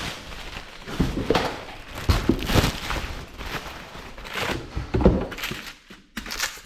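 Cardboard box and packing being handled, with several dull thumps and rustles at uneven intervals as a vacuum pump is unpacked.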